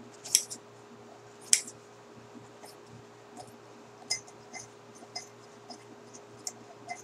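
Scissors snipping through paper towel: a few sharp snips, the two loudest in the first two seconds, then lighter clicks of the blades.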